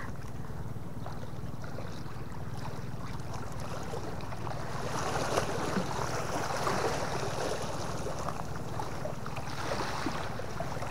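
Small sea waves lapping and splashing against shore rocks, growing busier about halfway through, under a steady low wind rumble on the microphone.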